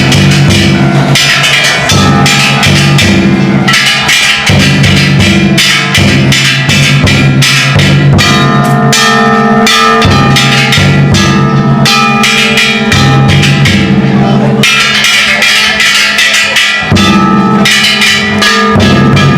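Ishidori-bayashi festival music: a big taiko drum beaten in rapid strokes under several bronze kane gongs clanging together, loud and without a break.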